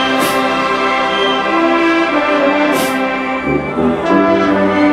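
Southern University marching band playing a slow gospel arrangement on brass, with sousaphones underneath, holding long chords, and a crash near the start and another about halfway through.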